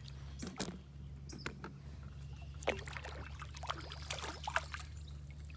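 Light water splashing and small knocks around a small fishing boat, over a steady low hum.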